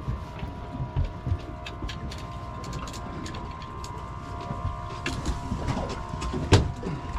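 A boat's engine running steadily, with scattered knocks and clatter on deck and a louder knock near the end.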